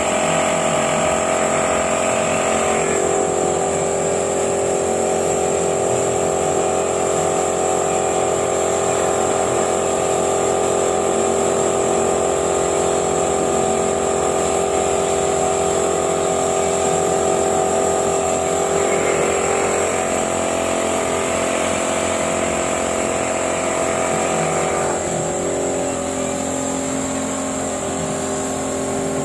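A motor running steadily with a droning hum, its tone shifting a few times, with a constant high whine over it.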